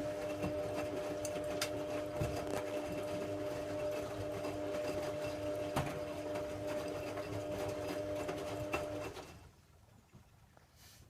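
Hoover Logic A3790 washing machine running mid-wash: a steady motor hum with scattered light clicks, cutting out about nine seconds in.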